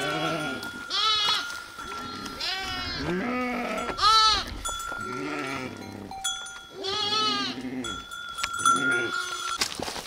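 A flock of sheep and lambs bleating, about eight calls one after another, with the ringing of bells worn by the flock.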